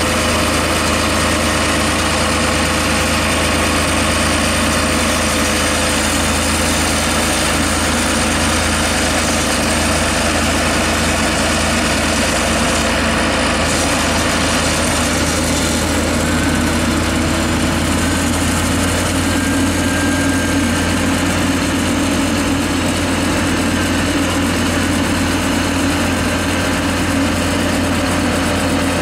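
John Deere 7530 tractor's diesel engine running steadily at low revs, a deep even hum.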